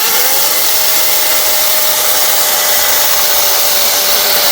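Einhell cordless battery chainsaw running at full speed, its motor and chain giving a steady high whine over a loud hiss.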